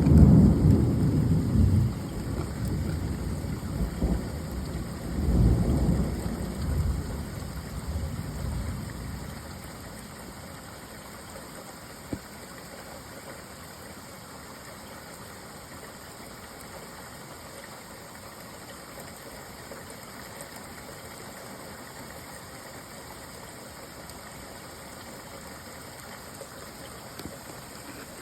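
Steady rain with rolling thunder: a loud low rumble fading over the first two seconds, a second rumble about five seconds in, then steady rain alone once the thunder dies away about ten seconds in.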